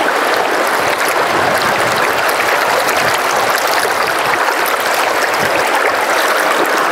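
Fast, shallow river rushing steadily over a rocky riffle: an even, unbroken sound of running water.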